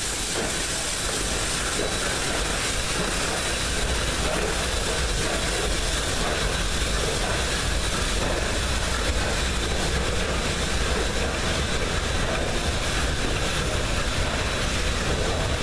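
Steam locomotive 1309, a 2-6-6-2 Mallet, moving slowly with its passenger train inside a rail tunnel. It gives a steady, loud rumble with a hiss of steam and some wheel clatter on the rails.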